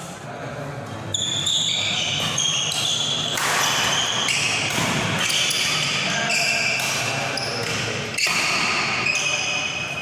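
Badminton rally: court shoes squeaking on the hall floor in many short high squeals, with one sharp racket strike on the shuttlecock about eight seconds in.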